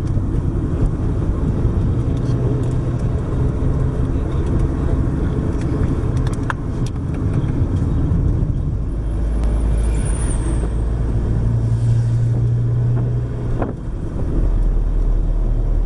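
Car on the move: a steady low rumble of engine and road noise, with a few light clicks and a brief high squeal about two-thirds of the way through.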